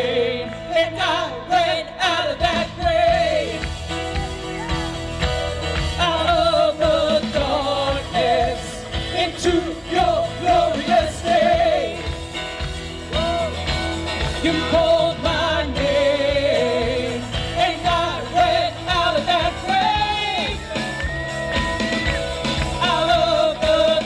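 Worship band playing a song with a steady drum beat and singing over it.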